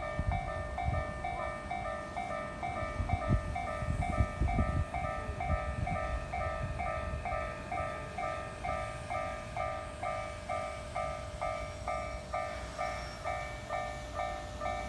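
Japanese level-crossing warning bell ringing steadily at about two strikes a second, with a train rumbling and clattering past the crossing in the first few seconds.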